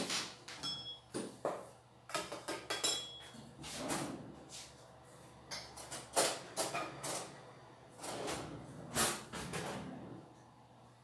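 Irregular clinks and knocks of a plate and cutlery on the counter while a slice of cake is cut and served, a few of them briefly ringing.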